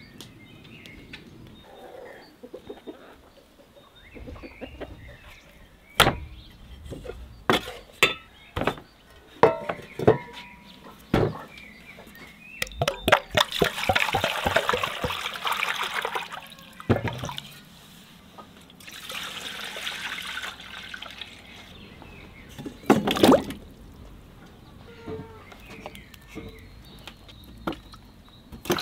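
Water poured into an aluminium pot over a piece of raw beef, in two pours a few seconds apart. Before the pours comes a run of sharp knocks and clatter, which are the loudest sounds, and there is one more knock after them.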